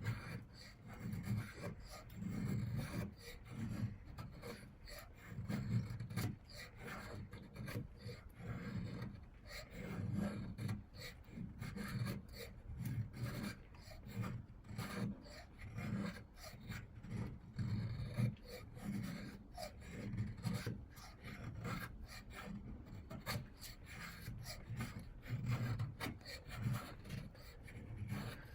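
Leatherman Rebar's V-edge knife blade shaving curls off a wooden stick to make a feather stick: repeated scraping strokes, roughly one a second.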